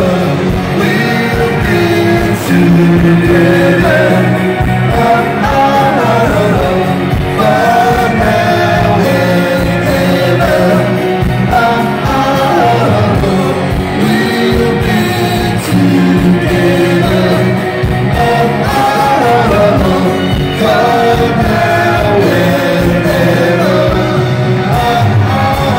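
Rock band playing live and loud: electric guitar, bass guitar and drums, with a singing voice over them.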